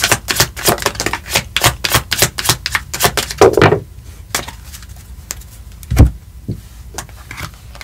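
Tarot cards being shuffled by hand: a rapid run of crisp card clicks for about four seconds, then a few scattered taps and one louder knock about six seconds in.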